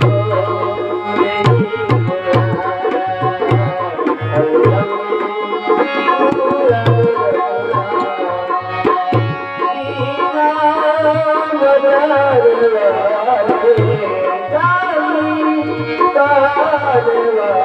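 Instrumental music of a Hindi devotional song: tabla playing a steady rhythm of deep bass strokes under a melody line that slides in pitch.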